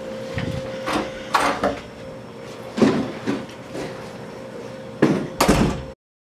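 Scattered knocks and thuds of a bag being handled and carried out through a wooden door, with two loud bangs close together near the end before the sound cuts off.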